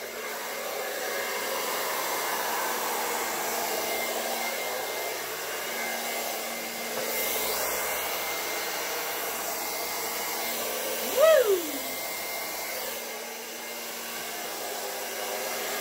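Handheld blow dryer running steadily on its low setting, a rush of air with a faint steady hum, blowing wet acrylic paint across a canvas. A brief exclamation of "Woo!" about eleven seconds in.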